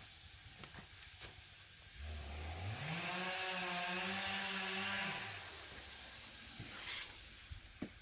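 An engine revs up about two seconds in, holds at high speed for about three seconds, then drops back down and fades. A few sharp clicks come before it, and a short hiss comes near the end.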